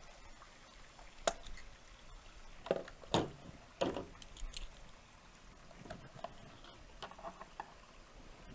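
Scattered light knocks and clicks of a plastic barrel lid and its fittings being handled on a table: a sharp click about a second in, a few louder knocks around three to four seconds in, then fainter taps.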